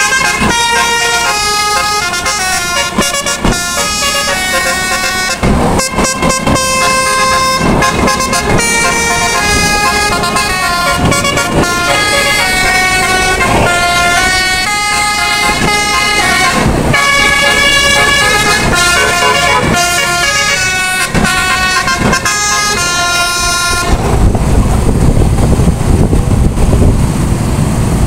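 Bus's multi-note 'telolet' musical air horn playing a quick tune, its notes jumping from pitch to pitch. Near the end the horn stops, leaving a low rumble of wind on the microphone.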